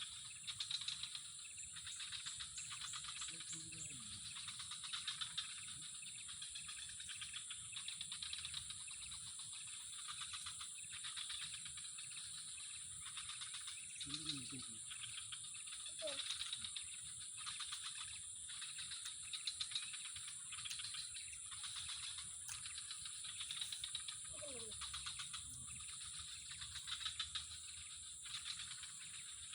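Insects calling steadily: a continuous high-pitched drone with a fast pulsing buzz beneath it. A few faint short gliding calls come through about four times.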